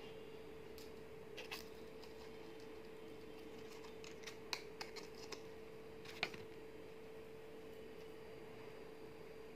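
Faint scattered clicks and small taps of metal earrings being handled and fastened at the ear, about six of them, the sharpest about six seconds in, over a steady faint hum.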